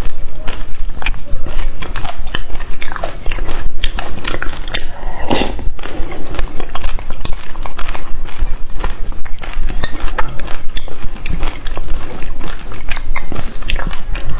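Close-miked eating of passion fruit: rapid, wet, clicky chewing of the pulp and seeds, with one longer, louder wet sound about five seconds in.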